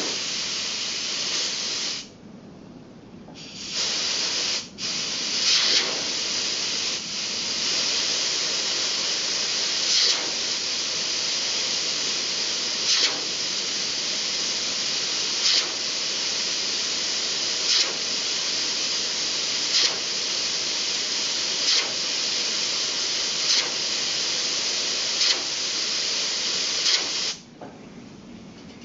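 Compressed air hissing from a hand-held nozzle, blowing the levitating superconductor train around its magnetic track. It runs about two seconds, stops briefly, then runs steadily for over twenty seconds with short louder spurts about every two seconds, and cuts off suddenly near the end.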